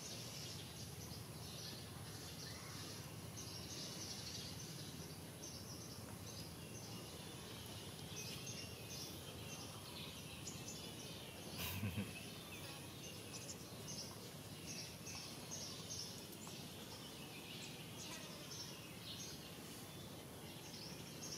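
Quiet outdoor background with many short, high chirps scattered throughout over a steady high hiss, and one brief low thump about twelve seconds in.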